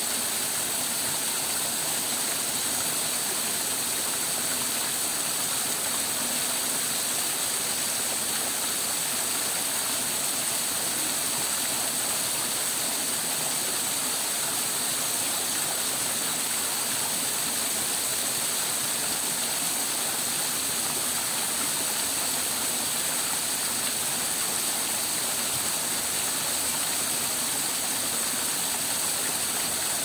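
Small rock cascade waterfall, water splashing steadily down several ledges of stacked stone: an even, unbroken rush.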